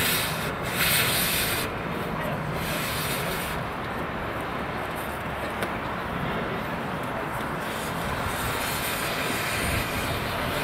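Oxy-fuel cutting torch hissing as it burns through the steel of a steam locomotive's ash pan, throwing sparks. The hiss surges louder several times in the first few seconds and again near the end.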